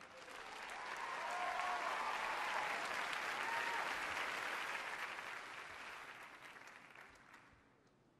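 Studio audience applauding, with a few whoops. The applause swells over the first couple of seconds and then dies away toward the end.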